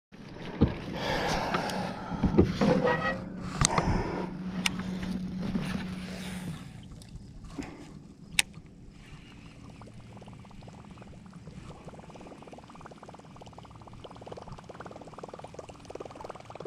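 Kayak on the water: knocks and clatter over a steady low hum for the first six seconds or so, with one sharp tick near the middle, then a quieter, steady wash of water.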